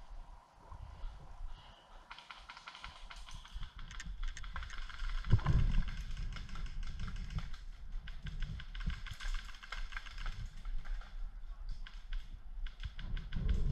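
Rapid rattling clicks of airsoft guns firing in bursts, with a heavier thump about five seconds in.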